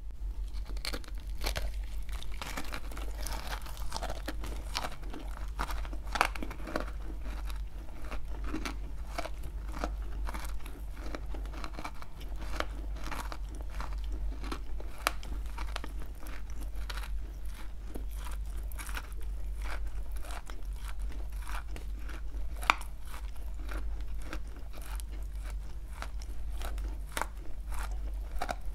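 Close-miked biting and chewing of dry clay with cream: dense, irregular crunching and crackling all the way through, with two sharper, louder cracks, about 6 seconds and 23 seconds in.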